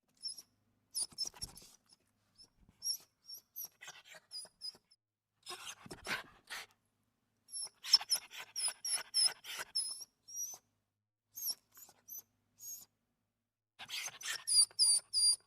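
Dog whimpering: runs of short, very high-pitched squeaks, several a second, broken by pauses. A brief rustle comes about six seconds in.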